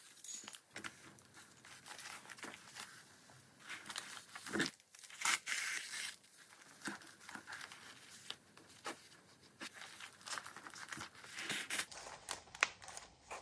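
Paper pages of a handmade journal rustling and scraping as they are handled, with scattered light clicks and scratches.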